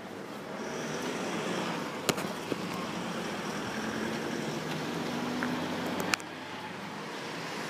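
A motor vehicle's engine and road noise on wet pavement, steady, cutting off abruptly about six seconds in, with a few sharp clicks along the way.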